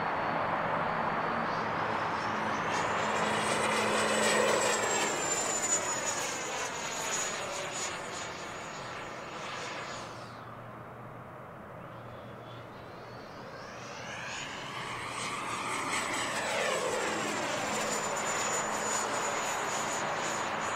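E-flite F-18's 80mm electric ducted fan whining as the model jet flies overhead. The high whine climbs about two seconds in, drops away sharply near the halfway point, then climbs again for a second pass and falls back near the end.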